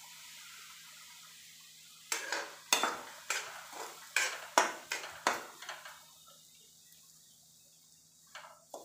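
Metal spoon scraping and clinking against a steel kadhai as semolina is stirred and roasted in hot ghee: a soft hiss as the semolina goes in, then a quick run of scrapes and clinks from about two seconds in that thins out, with a couple more near the end.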